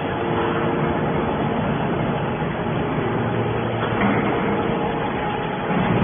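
Hydraulic scrap-metal baler running: a steady machine noise from its hydraulic power unit with a few steady tones in it, briefly louder about four seconds in and again near the end.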